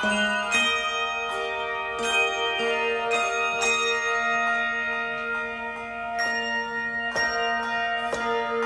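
A handbell choir playing a melody: bells are struck one or a few at a time, about every half second to a second, and each note rings on, overlapping the next.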